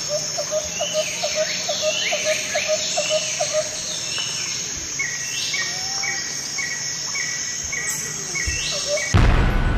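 Several birds calling and chirping over a steady high insect drone: a fast run of short repeated chirps, sweeping whistled calls, then a call repeated about twice a second. A louder, different sound cuts in abruptly near the end.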